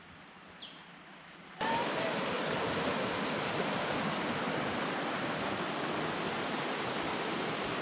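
River water running over shallow rapids: a steady rush that cuts in sharply about one and a half seconds in. Before it, a quiet stretch with one short high chirp.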